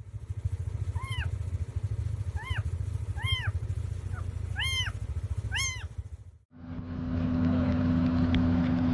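A dog whining in about six short, high rise-and-fall cries over the steady low rumble of a running vehicle engine. After a sudden cut near the end, a steady mechanical hum with a constant tone.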